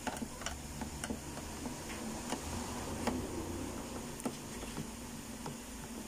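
Long screwdriver turning out screws from the plastic back cover of a Sony LED TV: a run of small, irregular clicks and ticks as the bit works in the screw heads.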